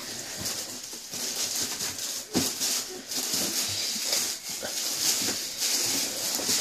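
Tissue paper rustling and crinkling as a shoebox is unpacked, with many short crackles.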